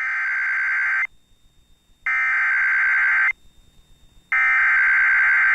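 Emergency Alert System SAME header: three bursts of rapid, screechy digital data tones, each about a second long with about a second's gap between them. This is the coded header that carries the severe thunderstorm warning to alert receivers and can set them off.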